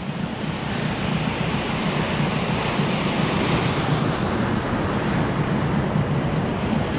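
Steady rush of sea waves and wind around a small boat on open water, with wind buffeting the microphone.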